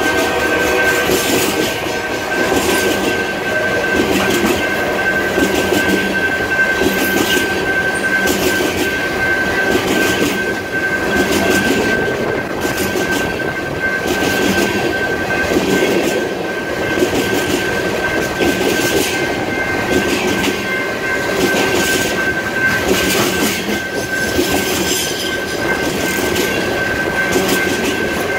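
Empty coal cars of a freight train rolling past close by: a continuous rumble of steel wheels on rail with a regular clickety-clack as the trucks cross rail joints, and a steady high-pitched ring over it.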